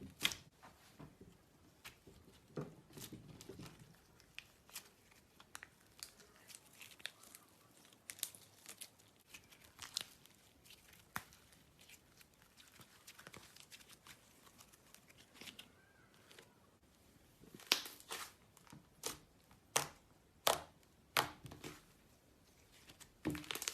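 Slime being squeezed and pressed by hand, giving irregular sharp pops and crackles that come thicker and louder near the end.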